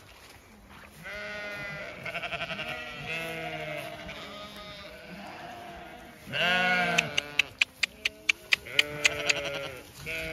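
A flock of Zwartbles sheep bleating, with several wavering calls overlapping one another. About seven seconds in comes a quick run of sharp clicks, roughly five a second, lasting some two seconds.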